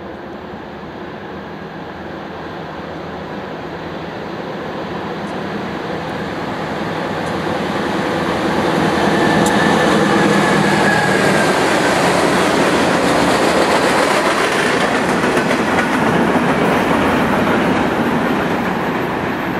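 A Norfolk Southern diesel freight locomotive approaches, growing louder over about ten seconds, then passes close by. It is followed by covered hopper cars rolling steadily over the rails.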